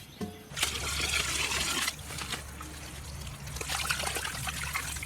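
Water trickling and pouring, heaviest for about a second near the start, then running on more lightly.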